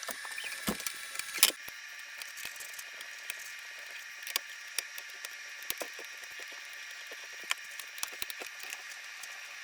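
Scattered small clicks and taps of screws and a screwdriver as the control board is screwed back into the welder's case, with one sharper knock about a second and a half in.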